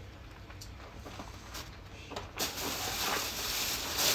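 A clear plastic bag being handled and crinkled, starting suddenly a little past halfway as a sustained crackly rustle, after a few faint clicks.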